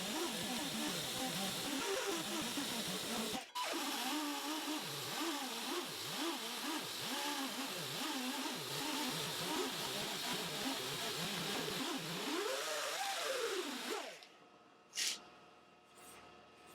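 Electric buffing wheel running against freshly dressed guitar frets, polishing them after 600-grit sanding: a steady hiss with a hum that wavers up and down as the pressure changes. It stops about fourteen seconds in, followed by a couple of light clicks.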